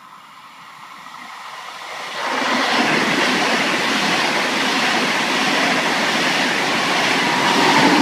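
Deutsche Bahn ICE high-speed train running through the station at speed. A rushing noise grows as it approaches, turns loud and steady about two seconds in as the cars pass close by, and peaks near the end before fading.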